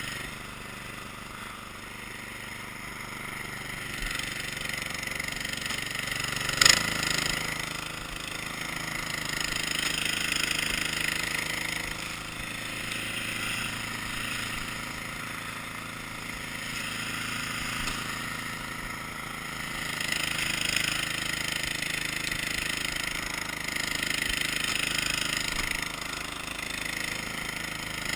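Cub Cadet engine running steadily, with one sharp knock about seven seconds in.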